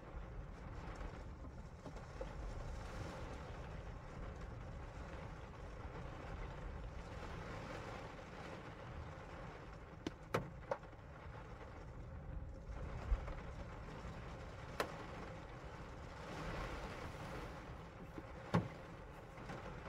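Rain falling on a car's windshield and roof, heard from inside the car: a steady wash of rain with a few sharper single drop hits in the second half.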